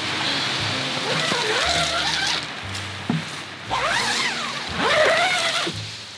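Background song with a singing voice over a bass line that changes note every second or so.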